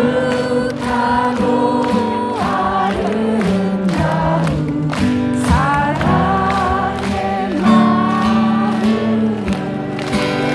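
A crowd singing a song in chorus with the lead singer, many voices together like a choir, with a steady sustained accompaniment beneath.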